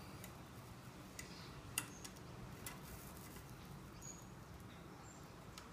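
A few faint, sharp clicks and ticks of a hacksaw blade and a small nail being handled and pressed into place on a rebar saw frame, over quiet room tone; the clearest click comes a little under two seconds in.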